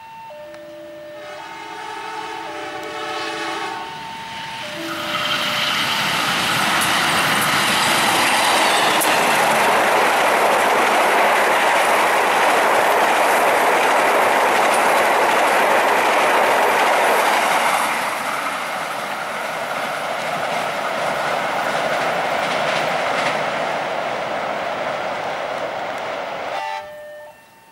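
A train horn sounds for a few seconds as the diesel locomotive approaches, after a steady tone at the start. A passenger train then passes at speed with a loud rush and clatter of wheels on rail. The noise eases about 18 seconds in and cuts off near the end.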